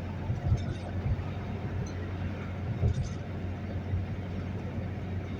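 Steady road and engine noise inside a moving RV's cab at highway speed: a low drone under tyre hiss, with a few short knocks.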